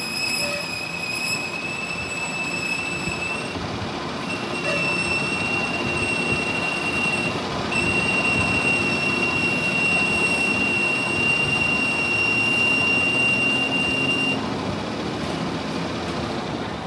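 Metal being machined: a cutting tool squealing at one steady high pitch over a rough cutting noise, breaking off briefly twice and stopping near the end.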